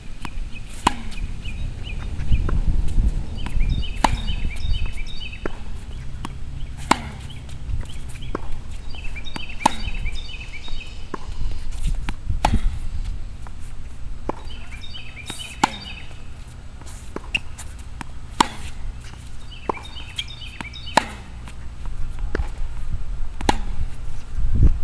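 Tennis racket striking the ball on forehand groundstrokes, a sharp pop about every three seconds, with fainter ball bounces on the hard court between hits.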